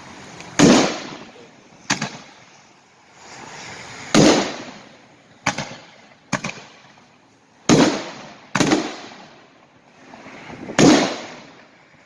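Dynomite Fireworks Neon Nishiki 5-inch kamuro aerial shells going off: about eight loud booms at uneven intervals, some short sharp cracks and others heavier booms that fade away over about a second.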